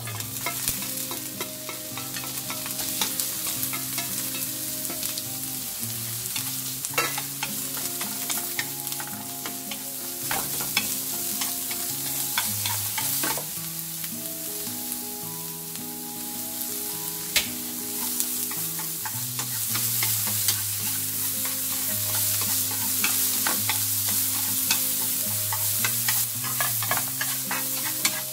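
Julienned carrots sizzling as they stir-fry in hot oil in a nonstick frying pan, with chopsticks clicking against the pan as they are stirred.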